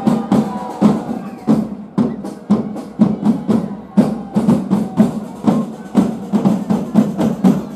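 Drums beating a brisk, steady rhythm, about three to four strokes a second.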